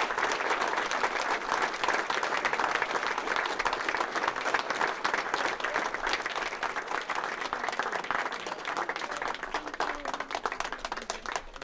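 Crowd applauding, a dense patter of many hands clapping that dies down near the end.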